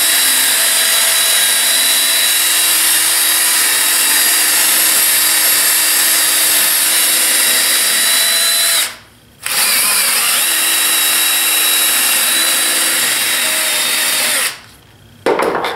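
Power-driven wire brush running against a steel clamp bar, scrubbing off dried glue. It runs steadily, stops briefly about nine seconds in, then runs again until shortly before the end.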